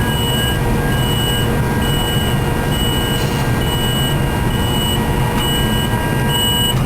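Electronic beeper sounding short high beeps about once a second, eight in all, over a steady loud rumble of machinery.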